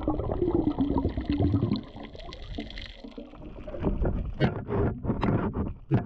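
Underwater sound picked up by a diver's camera: low water rumble, then a run of sharp clicks from about four seconds in.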